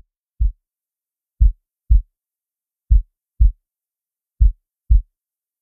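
Heartbeat sound effect: deep, muffled double thumps in a lub-dub rhythm, the two beats of each pair about half a second apart, a new pair every second and a half or so.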